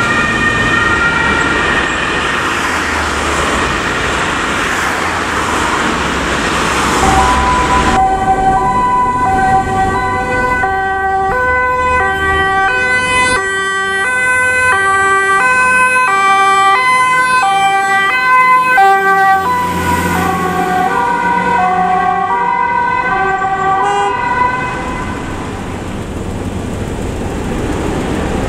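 German fire engines' two-tone sirens (Martinshorn) on an emergency run. At first a siren slides slowly down in pitch; from about a quarter of the way in a two-tone horn alternates high and low notes, steady and loud, and the pitch shifts partway through. The sirens stop near the end, leaving a truck's diesel engine running over traffic noise.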